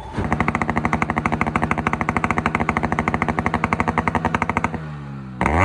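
Yamaha RX-series two-stroke single-cylinder motorcycle engine running with a fast, even popping exhaust beat. The revs drop away near the end, followed by a quick blip of the throttle.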